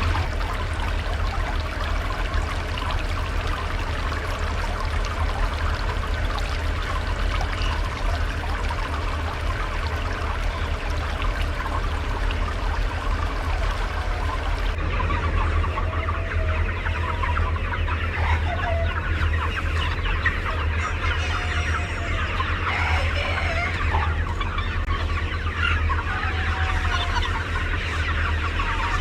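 A large flock of chickens clucking, dense and continuous, over a steady low hum. About halfway through the sound changes abruptly and individual hen calls stand out more.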